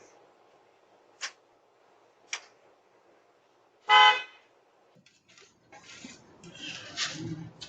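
Two sharp clicks, then a single short horn beep about four seconds in, the loudest sound here, followed by irregular rustling and knocks.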